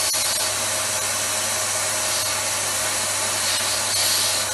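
Dyson DC39 canister vacuum cleaner running with a steady whir and rush of air, a palm held over the end of its hose to test the suction. The suction is weak: the machine is not performing as it should.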